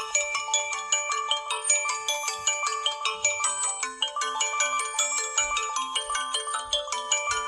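LG-SH840 mobile phone ringtone: a fast, bright melody of short high pitched notes, about five a second. A lower repeating note joins about three and a half seconds in, just before a brief break in the melody.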